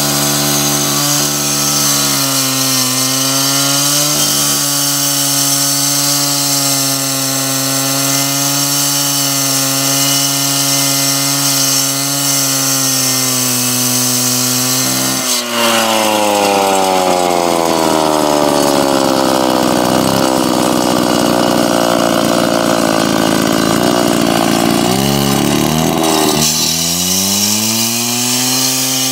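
Two-stroke petrol cut-off saw cutting through a prestressed spun-concrete pile. The engine runs at a steady high pitch, then about halfway its note drops sharply and stays low as it works under load in the cut, climbing back up near the end.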